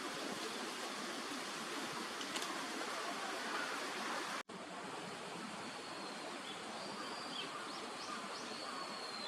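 Steady outdoor background hiss with no clear duck calls. The sound drops out for an instant about four and a half seconds in. Faint, thin, high calls follow in the second half.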